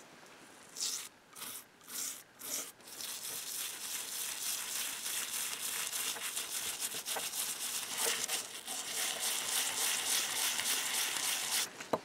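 A toothbrush scrubbing a wet, ornately cast iron lock faceplate: a few short separate strokes about a second in, then fast, continuous back-and-forth scrubbing that stops abruptly near the end.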